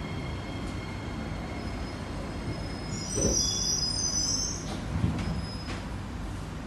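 Kawasaki–CSR Qingdao Sifang C151B MRT train braking to a stop at a station, heard from inside the car over the running rumble: a steady high electric whine cuts out about two and a half seconds in, then a high brake squeal with a light thud follows as the train halts.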